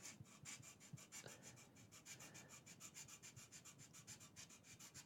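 Small file rasping on thin laser-cut wood in quick, even strokes, clearing the leftover cutting tabs from the window openings of a model boat's wheelhouse. Faint.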